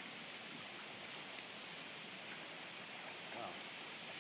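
Steady hiss of a shallow creek flowing over rocks, with a faint voice in the distance about three and a half seconds in.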